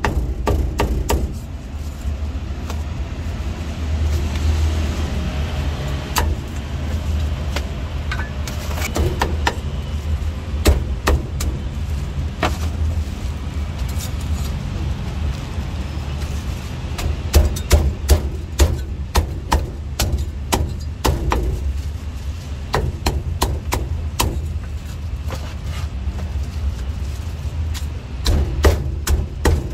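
Cleaver chopping crispy roast pork and roast duck on a thick wooden chopping block: sharp knocks, often in quick runs of several strokes, over a steady low background rumble.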